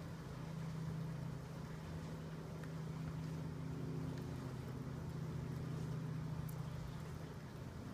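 A steady low machine hum, with a few faint clicks.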